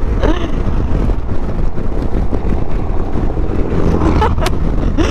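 Suzuki V-Strom motorcycle running at road speed, with steady wind rush on the microphone, as large trucks go by close alongside.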